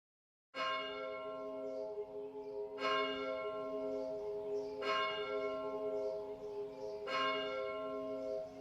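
A bell struck four times, about two seconds apart, each stroke ringing on with several steady tones. It starts out of dead silence about half a second in.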